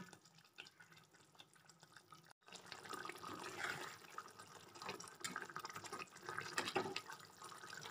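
Koi fish curry gravy bubbling and spitting as it simmers in a kadai, with a spatula moving through it. Faint at first; after a brief gap about two and a half seconds in, the crackling bubbling is louder.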